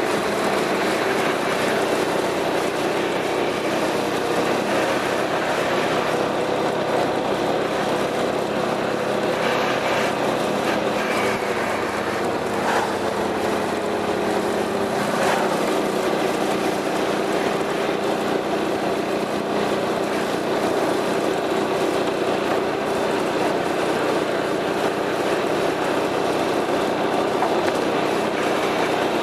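Piaggio MP3 400 scooter's single-cylinder four-stroke engine running steadily through an aftermarket Akrapovič exhaust, over an even rushing noise; its pitch eases down slightly about halfway through.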